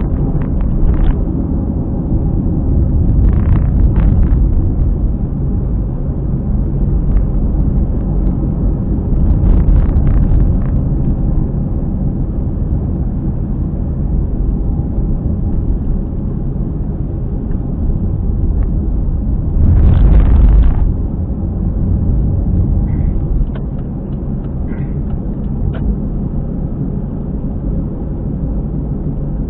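Car driving, with low road rumble and a steady drone from around a wheel that the owner takes for a worn hub bearing. A few louder rumbling swells come and go, the loudest for about a second two-thirds of the way in.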